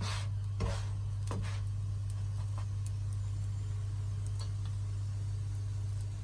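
A plastic spatula tapping and pressing against a nonstick frying pan a few times in the first second or so, over a steady low hum.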